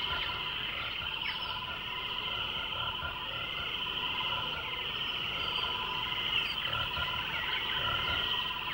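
A steady, dense chorus of chirping animal calls, with a continuous high chirring and a lower pulsing call underneath.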